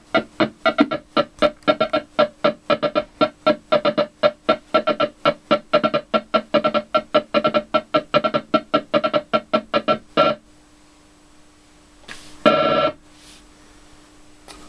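Photophonobservotron MK2 lunetta-style synth's tone being switched on and off by an external gate signal, making a fast, uneven rhythm of short pitched pulses, several a second. The pattern stops about ten seconds in, and a single short burst follows about two seconds later over a faint steady tone.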